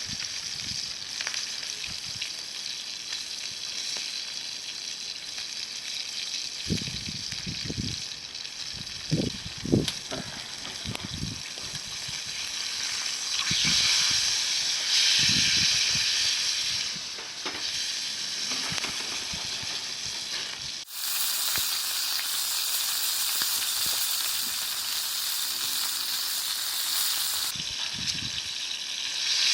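Steady sizzling hiss at a campfire, with scattered low knocks during the first half. The sound changes abruptly about two-thirds of the way in, then the hiss carries on.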